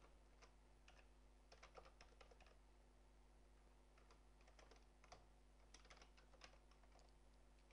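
Faint typing on a computer keyboard: irregular runs of key clicks with short pauses between them.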